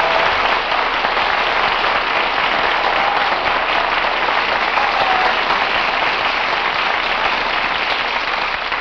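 Studio audience applauding steadily at the close of a sung ballad.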